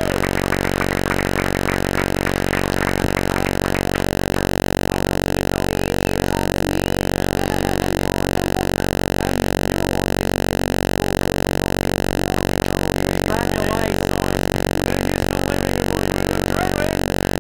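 A loud, steady buzzing drone that holds one pitch without changing, with a few faint flickering sounds under it early on and again about thirteen seconds in.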